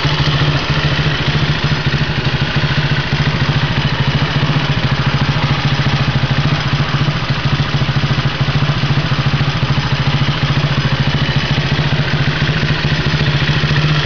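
Hi-Bird QH200ST ATV's four-stroke single-cylinder engine idling steadily, with an even, fast pulse and a strong low hum.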